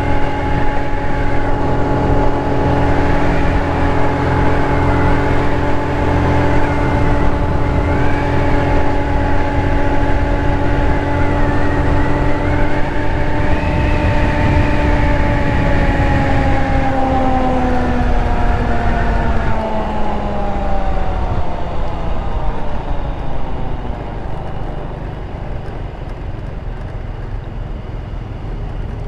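GY6 150cc scooter's single-cylinder four-stroke engine running at a steady cruising speed, then its pitch falls steadily as the scooter slows down, settling lower and a little quieter near the end.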